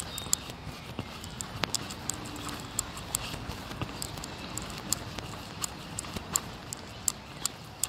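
Jogging footsteps on a rubber running track, a quick run of sharp taps about two to three a second, with knocks from the phone jostling in the runner's hand at each stride.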